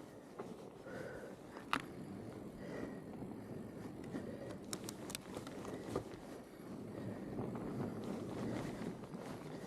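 Fat-bike tyres crunching steadily through snow, with a few sharp clicks and knocks from the bike.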